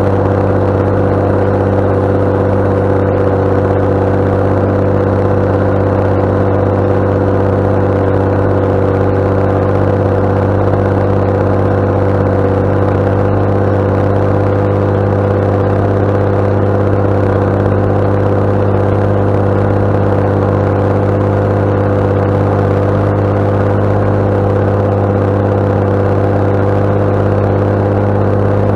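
JCB Fastrac 7270 tractor's six-cylinder diesel engine running steadily under load while pulling a six-furrow plough, its pitch holding constant.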